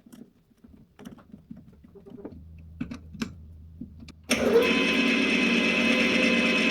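Light handling clicks and knocks, then about four seconds in an electric power tool switches on abruptly and runs at a steady speed.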